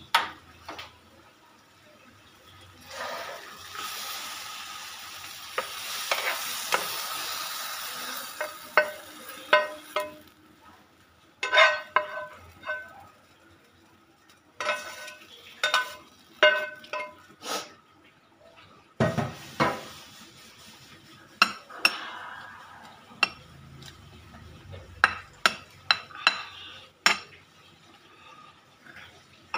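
Cooked bean paste sizzling in a hot pan while a spatula scrapes it out into a bowl. A hiss lasts several seconds near the start, then comes a string of sharp, ringing clinks and knocks as the spatula scrapes and taps against the pan.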